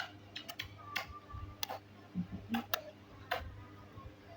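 A baby's irregular sharp clicks, roughly two or three a second at uneven spacing, with faint bits of baby voice in between.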